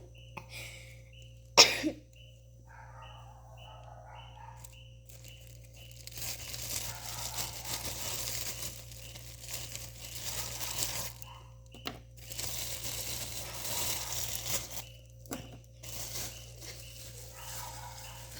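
Plastic food packaging crinkling and tearing in two long stretches, with a sharp knock about two seconds in.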